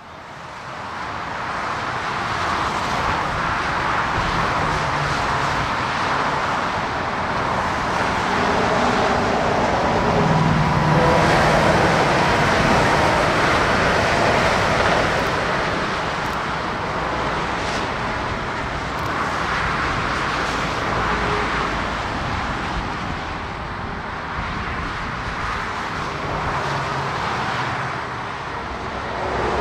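Steady motorway traffic noise from cars and trucks fading in over the first couple of seconds, with an ICE high-speed train passing on the tracks beside the road; the sound is loudest about ten to fifteen seconds in.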